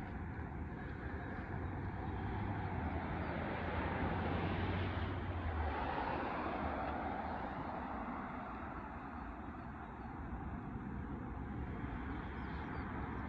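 A motor's low steady hum under a rush of noise, swelling to its loudest about four seconds in; the hum stops about six seconds in and the noise eases.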